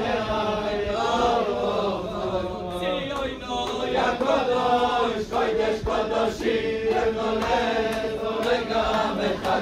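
A group of men singing a Hasidic song together in unison, a continuous chant-like melody without instruments.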